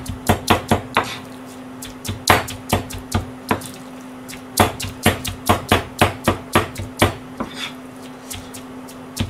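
Kitchen knife chopping and mincing ground chicken with green onion on a cutting board, in quick runs of sharp knocks about four a second, broken by short pauses, with only a stroke or two near the end. A steady low hum runs underneath.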